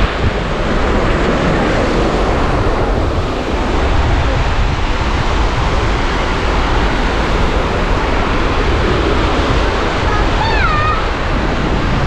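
Surf washing onto the beach, a steady hiss of waves, with wind buffeting the microphone as a low rumble. A short high-pitched cry sounds near the end.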